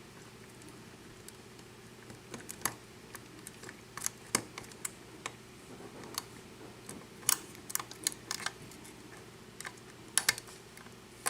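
Irregular small metallic clicks and ticks of a lock pick working the pins of a 5-pin lock with a Schlage keyway under a tension wrench, some coming in quick clusters: single-pin picking, lifting pins one by one to set them.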